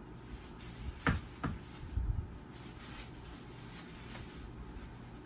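Plastic vacuum cleaner parts being handled and fitted together: two quick clicks about a second in, then a low thump.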